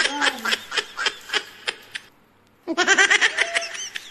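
A man's high-pitched laughter in quick, repeated bursts, breaking off for about half a second some two seconds in and then starting again.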